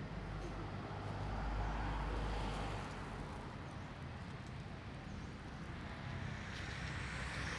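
Road traffic passing: a steady rush of cars going by, with a low rumble that eases after about three seconds.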